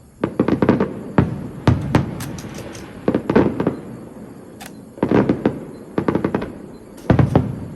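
Fireworks going off in quick volleys of sharp bangs, about six clusters of several reports each, with a brief crackle about two seconds in.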